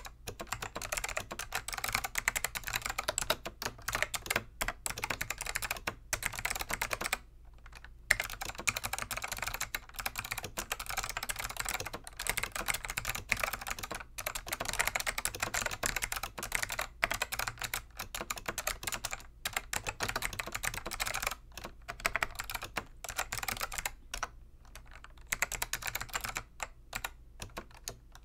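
Fast, continuous typing on a Dell AT101 keyboard with click-modded black Alps SKCM switches: dense, crisp clicky keystrokes, with a brief pause about seven seconds in.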